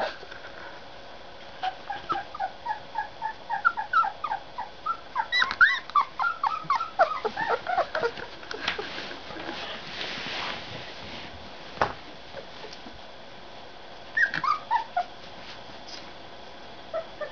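Young puppies whimpering and squealing in quick runs of short, high squeaks, some falling in pitch. The squeaks come thickest in the first half and return in a brief run near the end.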